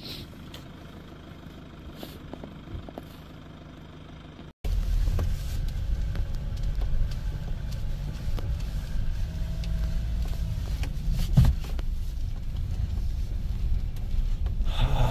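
Motor vehicle running, a steady low engine and road rumble. After a cut about four and a half seconds in, the rumble is louder, with one sharp knock late on.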